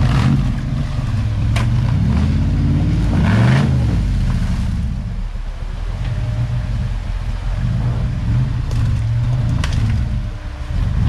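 Off-road 4x4 engine running at low revs, the revs rising and falling as it works, with a couple of sharp knocks, one about a second and a half in and one near the end.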